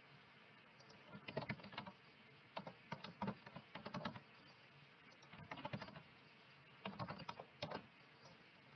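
Quiet typing on a computer keyboard in four short bursts of rapid keystrokes, with pauses between them.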